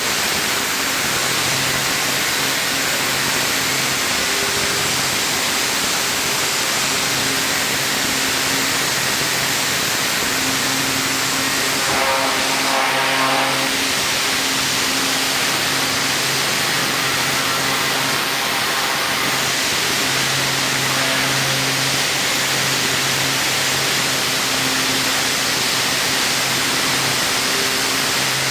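High-pressure washer spraying steadily, a continuous hiss of water over the even hum of its pump motor, with a brief change in the hum about halfway through.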